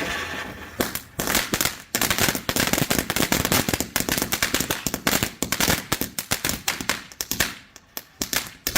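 Consumer firework crackling: a fading hiss gives way about a second in to a dense run of rapid, sharp pops and crackles that goes on to the end.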